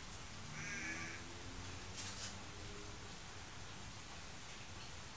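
A faint crow caw, once, about half a second in, with a light click about two seconds in over quiet room tone.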